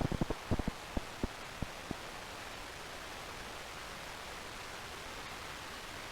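Synthesized thunderstorm from a VCV Rack modular synthesizer: the last of a thunder rumble dies away in a few scattered low crackles over the first two seconds, leaving a steady, even hiss of synthetic rain.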